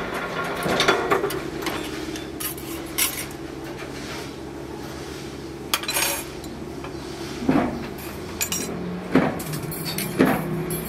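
Thin stainless steel rods clinking and knocking against each other and a metal jig as they are handled, in about ten irregular sharp knocks, over a steady low hum.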